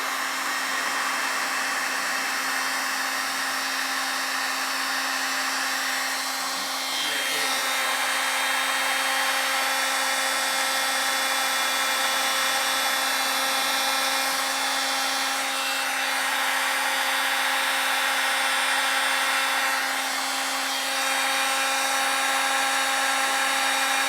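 Electric heat gun blowing steadily with a constant hum, shrinking heat-shrink tubing over soldered car stereo harness connections. Its sound dips briefly a few times.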